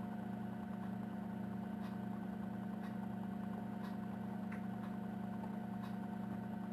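Steady low hum of room tone with a few faint ticks scattered through it.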